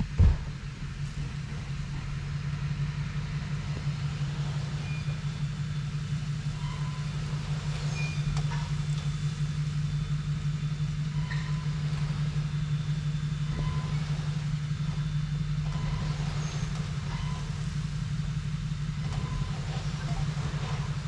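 Dump truck's engine running at a steady speed, a low drone, while its raised bed tips out a load of wood chips. A knock right at the start and a few short high chirps now and then.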